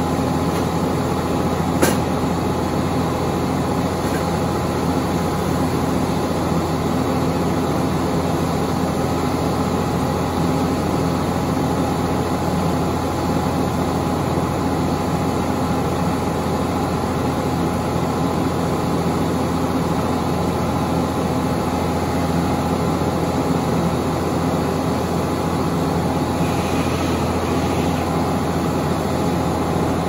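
Sawmill running steadily under power, a constant engine-driven drone with low steady tones, and one sharp click about two seconds in.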